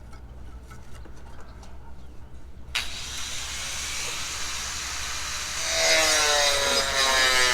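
A power tool starts up about three seconds in with a steady rushing hiss, and near the end a loud motor whine joins it, its pitch slowly drifting.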